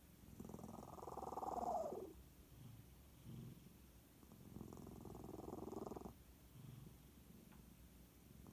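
Domestic cat's odd rumbling noises with its breathing while asleep, which the owner takes for sleep-talking or snoring: two long rumbling outbreaths, the first sliding down in pitch at its end, with short low sounds in between.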